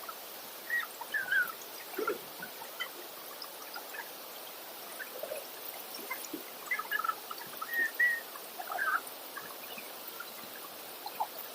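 Birds chirping in short, scattered calls over a steady background hiss.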